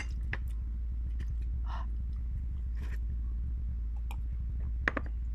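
Close-up chewing of raw onion: a few sharp crunches and mouth clicks, the loudest near the start and about five seconds in, over a steady low hum.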